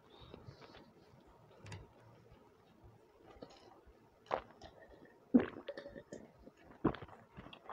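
Quiet chewing and mouth sounds, then a man gulping water from a glass mug: three loud swallows, the middle one the loudest.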